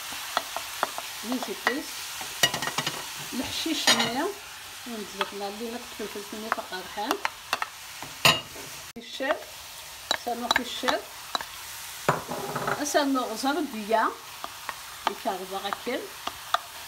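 Wooden spoon stirring chopped vegetables in a stainless steel frying pan as they fry in oil, a steady sizzle under many sharp clicks and short squeaky scrapes of the spoon against the pan.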